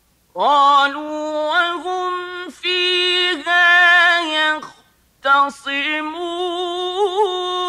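A man's voice chanting Quran recitation in the slow, melodic tajwid style, holding long notes with quick ornamental turns. The voice begins about half a second in and breaks for a breath about five seconds in.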